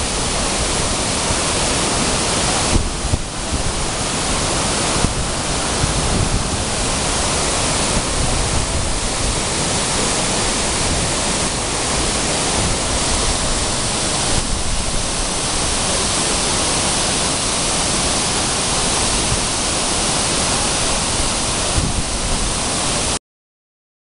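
A large waterfall cascading over stepped rock terraces: a loud, steady rush of falling water that cuts off suddenly near the end.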